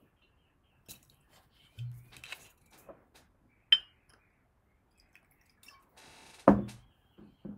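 Clear spirit poured from a glass bottle into a small shot glass, with light clinks and knocks of glass and one sharp click in the middle. A sudden thump near the end is the loudest sound.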